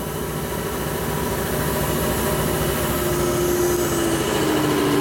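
Shop air compressor running steadily, its piston pump giving a fast low pulsing, with a humming tone that sags slightly in pitch near the end.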